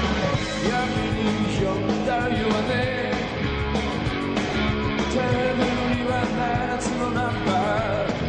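Rock band playing live: electric guitars, bass, drums and keyboards with a steady driving beat, and singing over it.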